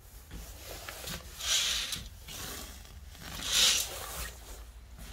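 Two short rasping swishes about two seconds apart: sheer curtain fabric being brushed and pushed aside.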